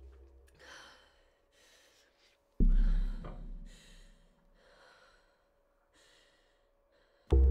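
A woman breathing hard in short gasps, about one breath a second. A deep booming hit comes about two and a half seconds in and fades over a second or two, and another begins right at the end.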